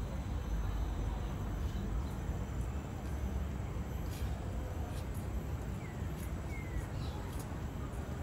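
Outdoor park ambience: a steady low rumble of distant city traffic, with a couple of faint bird chirps about six seconds in.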